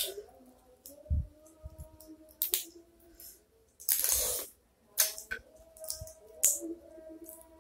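Blue swimmer crab shells cracking and clicking as they are picked apart by hand, with a longer sucking slurp about four seconds in as meat is drawn from a crab leg. Faint background music underneath.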